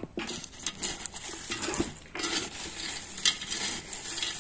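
A hand stirring a coarse potting mix of tepojal pumice stones, charcoal and orchid bark in a terracotta pot: the stones rattle and click against each other in an irregular run of small crunches.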